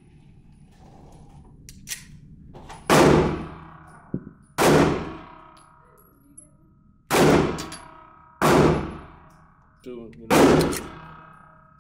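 Semi-automatic handgun fired five times in an indoor range booth, the shots spaced one to two and a half seconds apart. Each shot is sharp and loud and rings out in the enclosed room.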